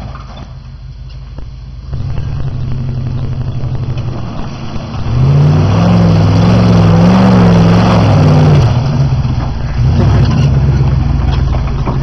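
Pickup truck engine revving while the truck pushes through mud, getting louder about two seconds in and loudest from about five to nine seconds in, its pitch rising and falling, then running on more steadily.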